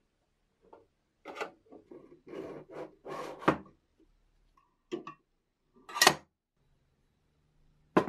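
A giant Zippo-style steel lighter handled on a tabletop: its hinged lid flipped open and the case knocked and slid, in a string of short metal clacks and rubbing sounds. The loudest is a sharp clack about six seconds in.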